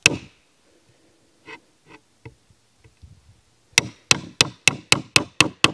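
Steel claw hammer striking the head of an Estwing 11-inch Nail Jack pliers, metal on metal, driving its jaws into the wood under a sunk finishing nail. One sharp strike, a few light taps, then from about four seconds in a quick even run of strikes, about four a second.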